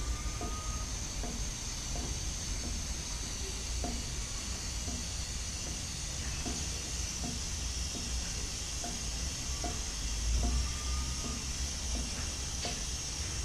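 Aerosol chain lube being sprayed in a long steady hiss onto a motorcycle drive chain, with light clicks about once or twice a second as the rear wheel is turned by hand.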